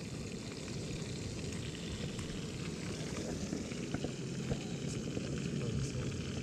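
Pieces of fish frying in hot oil in a frying pan on a portable gas camp stove: a steady crackling sizzle, with a few small clicks about four seconds in.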